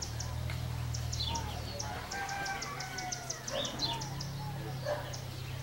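Birds calling outdoors: rapid high chirps and short call notes, with a rooster crowing about two seconds in, over a steady low hum.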